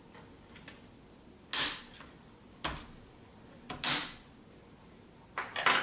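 Plastic snap clips of an Acer Aspire V3-572PG laptop's screen bezel popping loose as the bezel is pried off, four sharp snaps about a second apart, the last a quick double.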